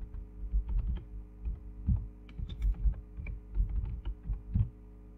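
Computer keyboard typing: a quick, uneven run of keystrokes, each a click with a low thump, stopping shortly before the end.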